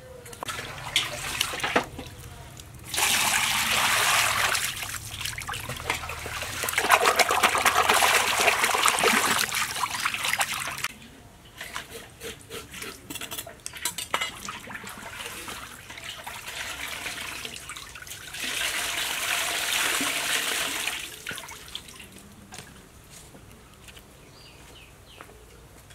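Water splashing and pouring in a metal basin as a large fish is scraped and rinsed by hand, in three loud spells of a few seconds each, with small knocks and splashes between.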